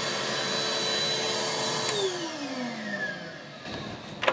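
Shop vacuum running with a steady whine and rush of air, switched off with a click about two seconds in, its motor winding down in a falling whine. A sharp knock near the end.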